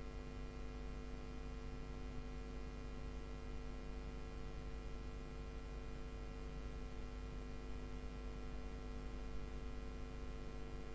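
Steady electrical hum under a faint hiss: a low rumble and a few constant tones, unchanging throughout with no other events.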